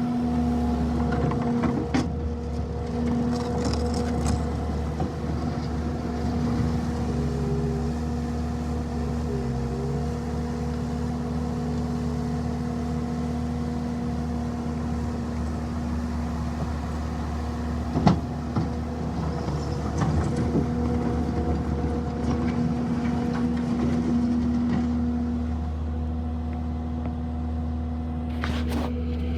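Bobcat T650 skid steer's diesel engine running steadily with a constant hum, pitch shifting slightly a few times. A few light clanks, and one sharp knock past the middle.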